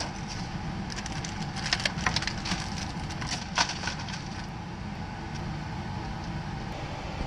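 Plastic wrapping crinkling and crackling as a cardboard box of chocolates is unwrapped and opened, with a run of sharp crackles in the first half that then dies down to quieter handling.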